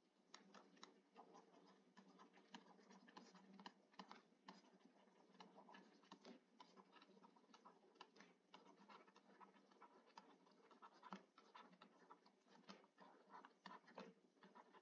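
Faint, irregular ticks and scratches of a stylus writing on a tablet or pen-tablet surface.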